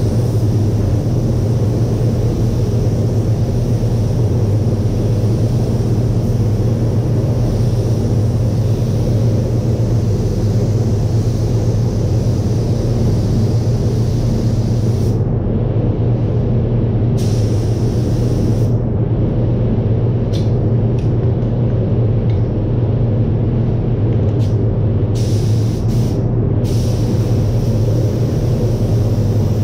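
Paint spray booth's ventilation fans running, a steady loud rumble with a strong low hum.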